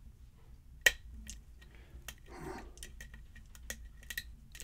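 Faint, irregular metallic clicks and ticks of lock picks and a tension tool working the pins of a pin-tumbler challenge lock fitted with serrated and spool security pins. One sharper click comes about a second in.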